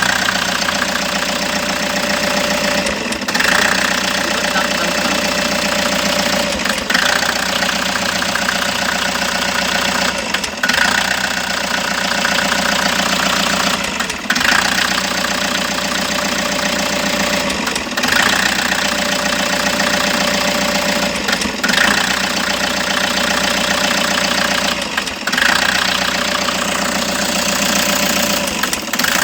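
Toyota HiAce engine idling steadily, running with the misfire that is being diagnosed. The sound breaks off very briefly about every three and a half seconds.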